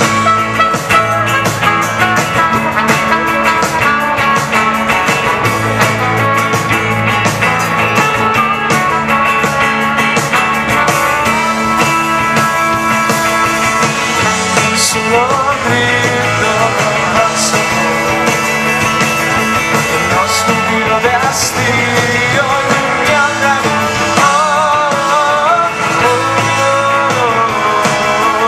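Live rock band playing a song, with guitars and drums, amplified through the stage PA.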